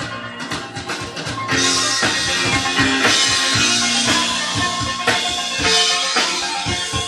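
Music with a drum-kit beat under sustained melodic notes, getting fuller about a second and a half in.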